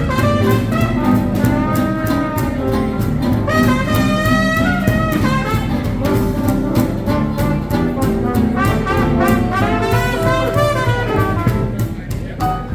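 Live hot-swing jazz band playing an instrumental chorus: a brass solo line over a steady swing beat from the rhythm section.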